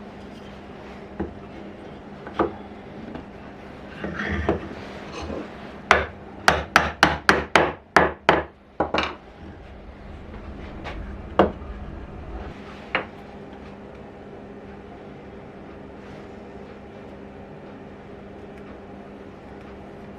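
Hand-tool woodwork: sharp knocks of a tool striking wood, a few single knocks at first, then a quick run of about a dozen strikes a few seconds in, then a couple more single knocks.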